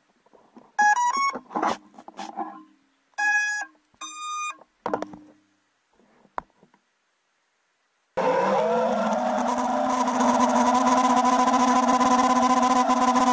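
Short electronic beeps, a quick rising three-note run followed by two single beeps, with a few handling clicks. About eight seconds in, an FPV quadcopter's electric motors start up and run steadily with a whine.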